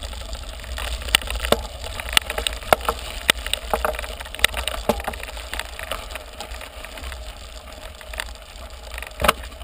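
Mountain bike rolling over a gravel road: a steady low rumble with frequent sharp clicks and rattles from tyres on gravel and the bike itself, the clicks thinning out in the second half.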